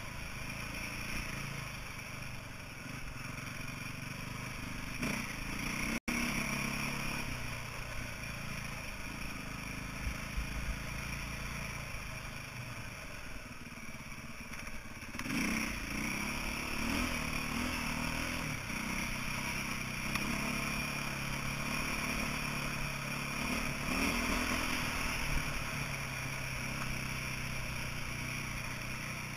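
2008 KTM 450 EXC's single-cylinder four-stroke engine running at low to mid revs while the bike is ridden, the throttle opening and closing, with louder swells about halfway through and again a little later.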